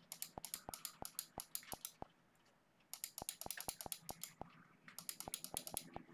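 Typing on a computer keyboard: quick runs of keystroke clicks, with short pauses about two seconds in and again about four and a half seconds in.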